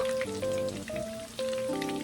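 Oil crackling and sizzling as food fries in a pan, with light background music over it that has clear melodic notes.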